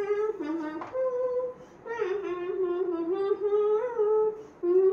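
A girl humming a song tune with her mouth closed, in short melodic phrases with brief pauses between them.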